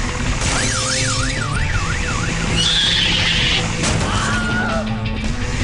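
Cartoon background music with sound effects. Early on, a whistle-like tone warbles rapidly up and down, like a siren, about five times.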